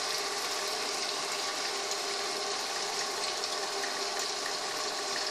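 Table-top wet grinder running steadily, grinding soaked urad dal into idli batter: a steady hum over an even rushing noise.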